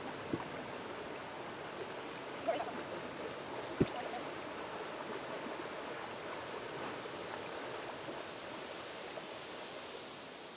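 Creek water running steadily as an even rush, with a faint, thin high tone that comes and goes and a single sharp click about four seconds in. The sound fades out near the end.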